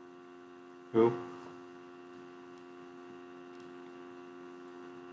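Steady electrical hum of several fixed tones at a low level, with a brief voiced sound from a person about a second in.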